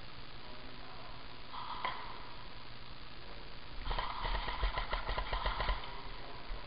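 Airsoft gun firing a rapid full-auto burst, a fast run of about a dozen clicking shots a second lasting about two seconds, starting about four seconds in. A shorter burst comes about a second and a half in.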